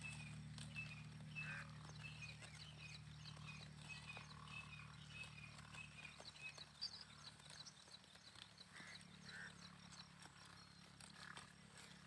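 Faint small birds chirping, with quick high notes repeated many times and a few lower calls, while sheep crop grass with soft scattered clicks. A low steady hum runs underneath and drops away about eight seconds in.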